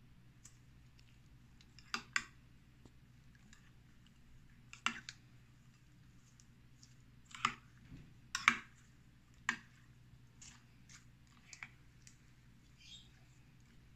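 Irregular sharp clicks and knocks of kitchen utensils and containers being handled while food is prepared. The loudest come about two, five, seven and a half, eight and a half and nine and a half seconds in, over a faint steady hum.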